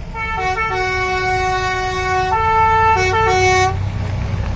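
A musical vehicle horn plays a short tune of several notes, long ones and quick ones, for about three and a half seconds. Underneath, the low running of motorcycle and trike engines continues.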